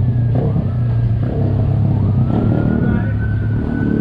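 Street traffic noise with a steady low hum, and a thin high tone that slowly rises through the second half.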